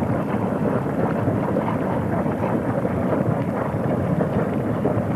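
Boiling hot-spring vent in a geyser basin, splashing water and venting steam: a steady rushing, churning noise.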